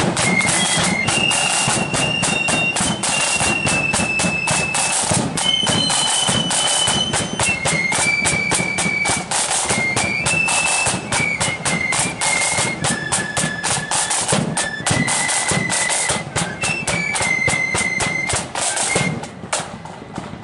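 Marching flute band playing: flutes in unison carry a shrill, high melody over rapid snare-drum strokes and a bass drum. The tune and drums stop shortly before the end.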